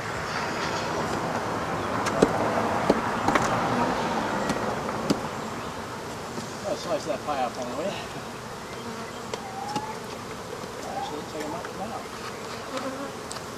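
Dense buzzing of a mass of honey bees stirred up at a nest in a house wall, louder in the first half, with scattered sharp clicks and knocks as the nest is worked at.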